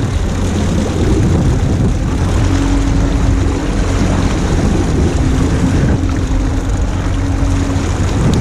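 Boat's outboard motor running steadily at trolling speed, over the rush of wind and choppy water.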